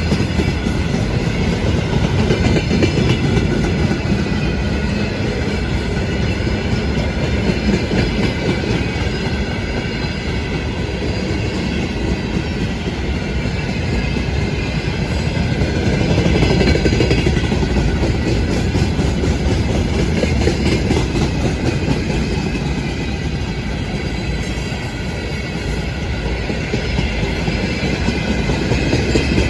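Freight train wagons rolling past close by, wheels clattering steadily over the rails.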